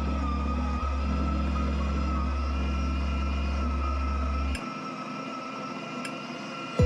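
Electric burr grinder motor running steadily with a whine as it grinds coffee beans into a portafilter. The deep part of the sound cuts off suddenly about two thirds of the way through, leaving a quieter whine.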